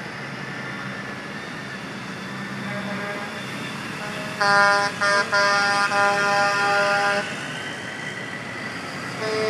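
Heavy tow trucks' diesel engines running as they pull past, then a truck air horn sounded about four and a half seconds in: three loud blasts, the last held about two seconds. Another horn starts just before the end.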